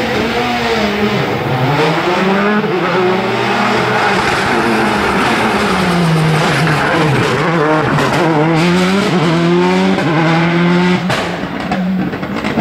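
Rally car engine revving hard, the pitch climbing and falling again and again as it shifts gear and brakes through a stage.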